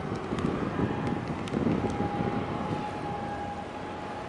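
Wind buffeting the microphone with a dense, uneven rumble, over a thin steady tone and a few faint ticks.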